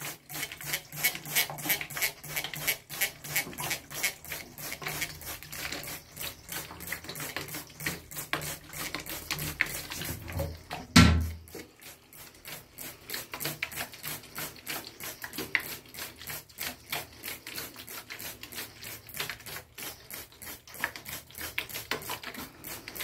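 Rapid, irregular clicking and pattering on a bathtub floor where two cockatiels are bathing, with one loud thump about eleven seconds in.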